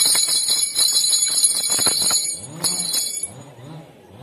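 A loud, shimmering jingle with a rapid rattle, breaking off briefly near the end and stopping a little after three seconds in. Under it, a low hooting call repeats a few times a second.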